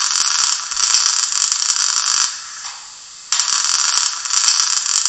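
Electric arc-welding sound effect played through the small loudspeaker of the Märklin 39940 H0 two-way Unimog model's digital sound decoder: a crackling hiss in two bursts of about two seconds each, with a pause of about a second between.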